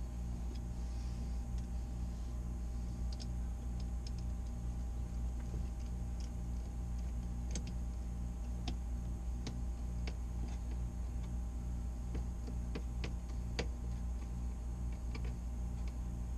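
Scattered light clicks and taps of a hose being worked onto a plastic fitting of a Vacuflush vacuum tank, a few clicks a second at most and irregular, over a steady low hum.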